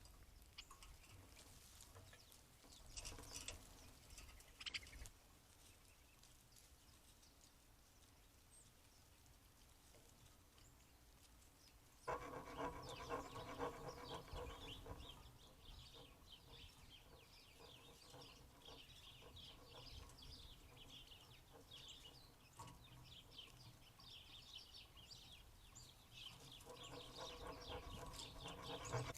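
Small birds chirping in quick, short notes through the second half, faint. A louder droning pitched sound, of unclear source, comes in at about twelve seconds for a few seconds and again near the end.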